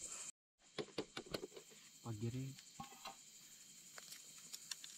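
Crickets chirping steadily, with small clicks and crackles of eggshell being peeled off a hard-boiled egg. A brief voice comes in about two seconds in.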